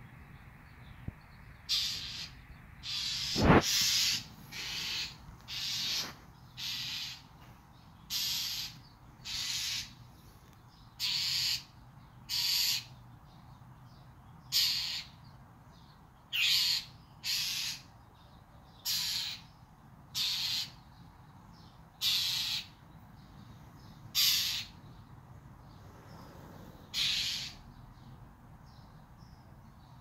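A small grey-and-white songbird perched on a wall gives a long series of harsh, noisy calls, each under a second long and about one every second or so. The calls stop a few seconds before the end. A single sharp knock, the loudest sound, comes about three and a half seconds in.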